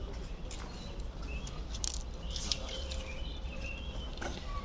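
Birds chirping in short calls, with a few light clicks and knocks over a steady low rumble.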